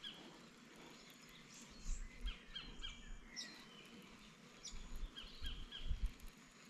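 Wild birds chirping and calling, many short high chirps and whistles scattered throughout, with a few soft low bumps.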